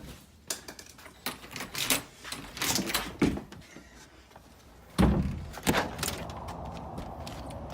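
A door being handled and opened, with a run of clicks and knocks, then a heavy thud about five seconds in. A steady background noise follows the thud.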